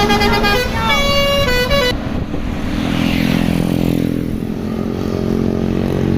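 Tour bus's basuri musical horn playing a short tune of stepped notes for about two seconds, then breaking off, leaving the bus's engine running as it passes.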